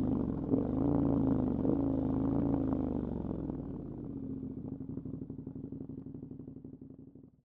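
KTM 1290 Super Adventure S's V-twin engine running at a steady low speed, its note holding one pitch, then fading away over the last few seconds before cutting off.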